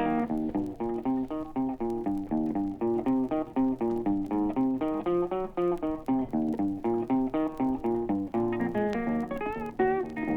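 Country blues guitar break with no singing: a fast run of picked single notes over a steady bass, with a few bent notes near the end.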